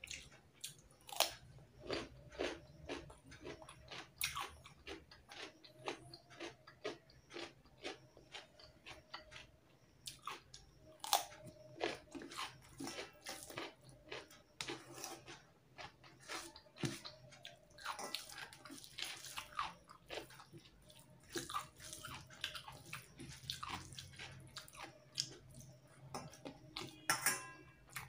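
Close-miked eating by hand: chewing, lip smacks and the wet squish of rice and fish curry being mixed with the fingers on a steel plate, a stream of short soft clicks several times a second.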